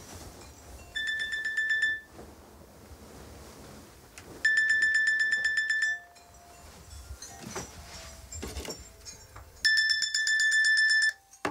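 Mobile phone alarm beeping: three bursts of rapid, high-pitched beeps a few seconds apart, the alarm set to wake the sleeper.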